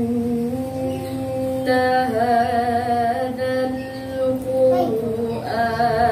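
A young woman reciting the Quran in the melodic tartil/qiraat style, in one unaccompanied voice. She draws out long held notes and adds wavering, trilled ornaments on the higher phrases.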